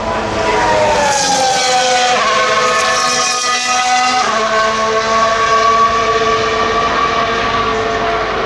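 Single-seater race car engine on track. Its note falls over the first two seconds, jumps up at about two and four seconds in, then holds a steady pitch through the rest.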